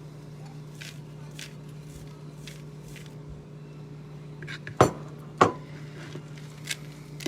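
A utensil knocking and clinking against a mixing bowl while stirring a thick banana and oat cookie dough: a few light clicks, then two sharp knocks about half a second apart past the middle, over a steady low hum.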